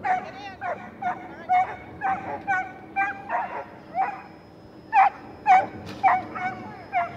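A cattle dog–border collie cross barking repeatedly in quick, sharp barks, about two a second, with a short pause midway.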